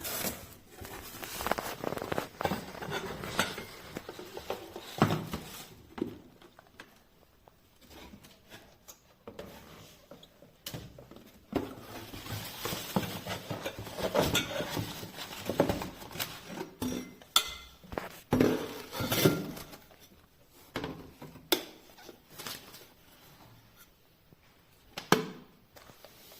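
Irregular clicks, knocks and rustling of hard plastic parts being handled, with no motor running.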